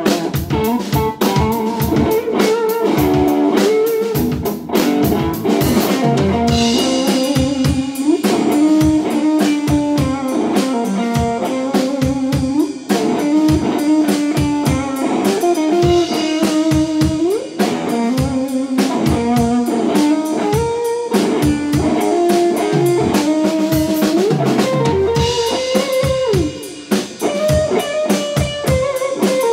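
Live instrumental blues: an electric guitar plays a lead melody with bent notes over a drum kit.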